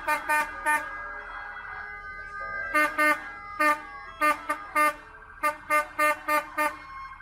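Vehicle horns honking in quick runs of short blasts, about a dozen in all with a pause of about two seconds after the first few, over a siren's faint wail falling in pitch.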